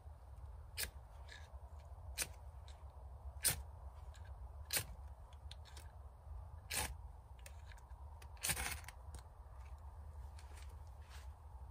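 Knife scraping in short, sharp strokes while tinder is prepared for a fire. About six louder strokes come one to two seconds apart, with fainter ones between, and the longest comes about eight and a half seconds in.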